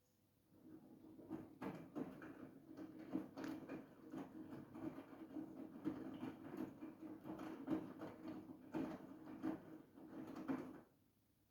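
Siemens iQ700 front-loading washing machine turning its drum for about ten seconds during a wash cycle: a steady motor hum with irregular knocks of the laundry tumbling. It starts about half a second in and stops abruptly near the end.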